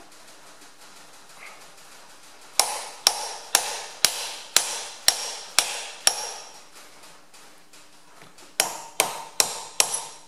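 A small hammer tapping a steel workpiece down in a milling-machine vise, seating it against the 3D-printed soft jaws. Sharp metallic taps with a short ring, about two a second: a run of eight, a pause, then five more near the end.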